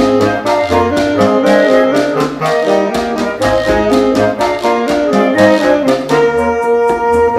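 Woodwind octet playing a lively passage: flute, clarinet, alto and tenor saxophones, bass clarinet and bassoon over congas and timbales. About six seconds in, the winds settle onto long held chords and the percussion thins out.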